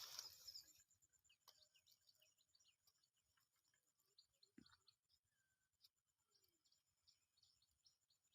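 Faint, scattered chirps of small birds over near silence, after a short rustling burst at the very start.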